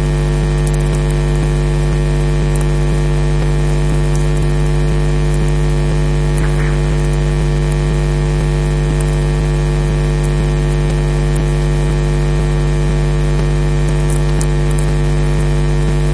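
Steady electrical mains hum from a nest webcam's audio line: a deep, unchanging drone with a stack of higher buzzing tones, and faint crackles now and then.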